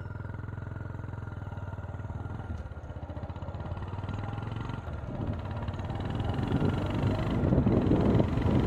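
An approaching Tamil Nadu Express train: a steady low locomotive hum that grows louder, with wheel-on-rail clatter building near the end as it draws close.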